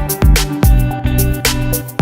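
Background music with a steady beat, with a plucked guitar-like line over it.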